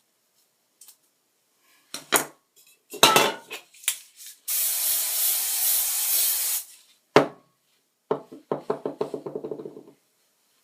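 Aerosol hairspray sprayed in one steady hiss of about two seconds, between clicks and knocks of things being handled. Near the end comes a quick run of rattling clicks.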